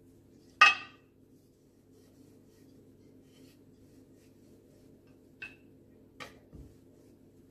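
Metal kitchenware clinking: one sharp, ringing clink about half a second in, then two lighter clicks and a soft low thump near the end. The cook is handling floured thepla dough on a metal rolling board beside a steel flour bowl. A faint steady hum sits underneath.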